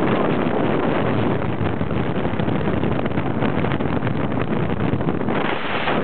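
Small fishing boat's motor running at speed, its steady drone mixed with heavy wind buffeting on the microphone.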